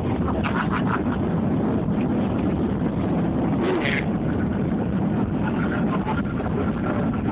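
Steady rumble of a jet airliner's engines and rushing air, heard from inside the passenger cabin during the descent to land.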